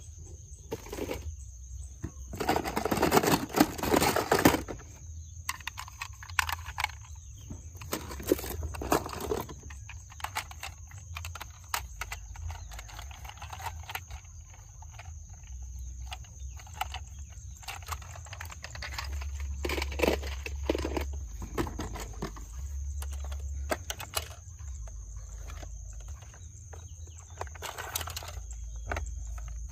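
Toy cars being handled: scattered light clicks and knocks, with a denser rustling clatter a few seconds in. A faint steady high-pitched tone runs underneath.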